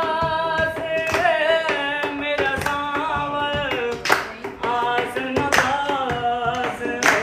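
A man singing a song with long held, wavering notes that glide from pitch to pitch, with a few sharp hand slaps along the way.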